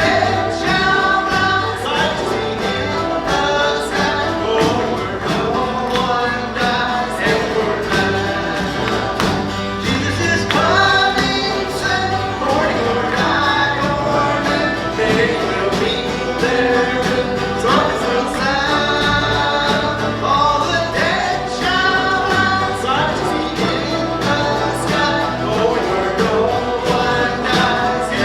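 Live gospel music from a church worship band, with singing over the instruments.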